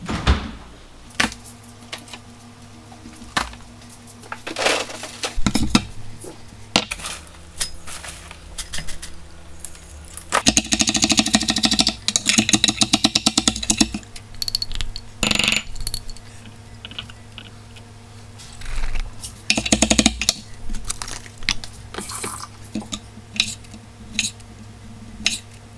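Salad-making sounds in a kitchen: scattered knocks and clatters, and in the middle a fast run of knife chops on a wooden cutting board lasting about four seconds, over a low steady hum.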